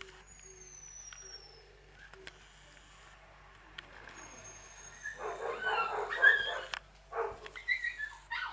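Shiba Inu puppies whimpering and yipping: faint high squeaks early on, a loud burst of squealing about five seconds in, then short high-pitched yelps near the end.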